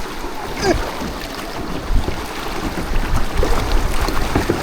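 Wind buffeting the microphone over a canoe on the river, with water noise and scattered small knocks.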